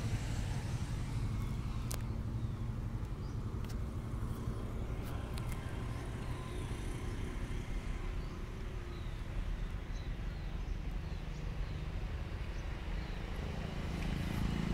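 Truck diesel engine idling with a steady low rumble, a few faint clicks over it.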